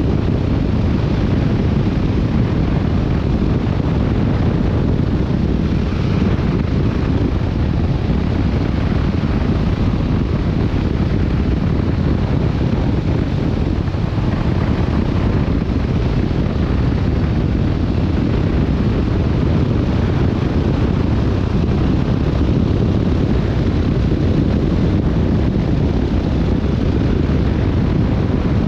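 Steady wind rushing over the microphone of a motorcycle-mounted camera at riding speed, with the Yamaha Tracer 7's parallel-twin engine running underneath.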